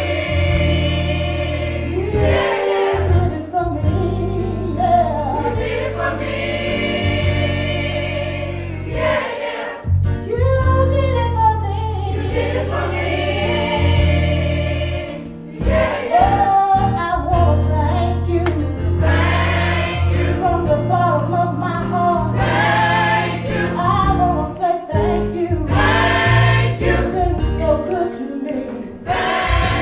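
Gospel choir singing in phrases over a steady bass accompaniment.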